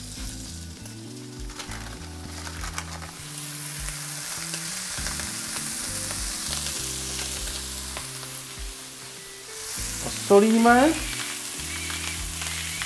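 Raw ground-beef patties sizzling in hot oil in a nonstick frying pan, the sizzle growing louder about three seconds in as more patties go into the pan.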